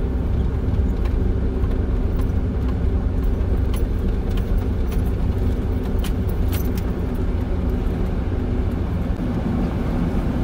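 Steady low engine and road rumble heard from inside a moving vehicle's cab, with a constant hum and a few light clicks and rattles.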